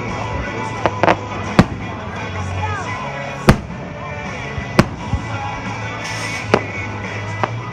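Fireworks bursting in the air: about eight sharp bangs at irregular intervals, the loudest about three and a half seconds in. They go off over the show's music.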